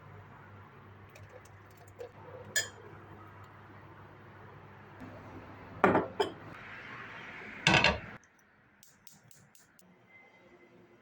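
Glass and dishes being handled in a kitchen: scattered light clinks, two loud knocks about six seconds in and a longer clatter just before eight seconds, then a quick run of small clicks.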